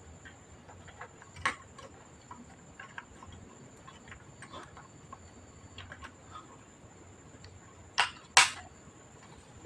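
Scattered light clicks and taps of small parts and tools being handled during computer disassembly, with two sharper clacks about eight seconds in.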